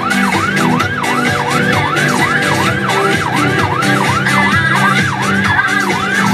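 Ambulance's electronic siren on a fast yelp, its pitch sweeping up and down about three times a second, heard from inside the cab. Radio music plays underneath.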